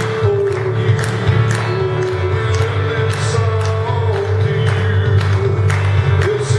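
Live church worship music with singing, a steady beat and a strong bass line.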